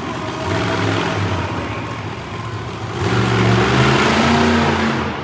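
Monster truck engine revving while the truck holds a nose wheelie on its front wheels; the revs climb and get louder about three seconds in, then ease off near the end.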